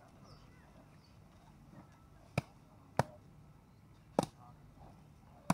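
Meat being chopped with a heavy blade: four sharp, unevenly spaced chops, starting a little over two seconds in.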